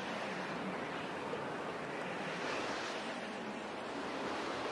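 Ocean surf washing: a steady sea wash that swells gently and slowly.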